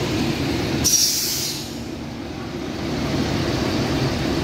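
Bus engine idling with a steady low rumble; about a second in, a short hiss of air from the bus's air brakes that fades within a second.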